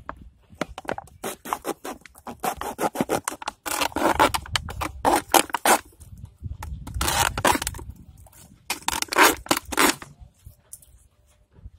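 A knife sawing and cutting through a thin plastic bottle: runs of quick scratchy, crackling strokes with short pauses between them, the plastic crinkling under the blade.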